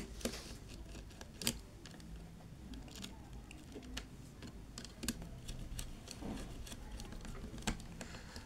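Scattered small clicks and taps of a screwdriver working the terminal screws of a contactor, with wires being handled.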